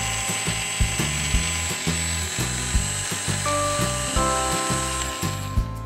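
Fisher-Price Drillin' Action toy drill running with a high whir that stops shortly before the end, over background music with a steady beat.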